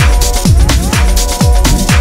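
Electronic dance music with a kick drum about twice a second under a steady synth line.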